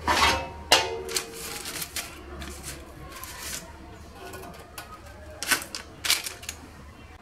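Dough pinwheels being set down by hand on a parchment-lined metal baking tray: a series of light taps and paper rustles at irregular intervals, with a brief ringing tone in the first second or so.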